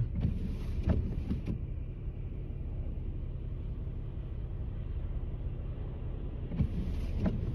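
Nissan Maxima running, heard from inside the cabin as a steady low rumble. Two brief hissing swishes come in, one at the start and one near the end.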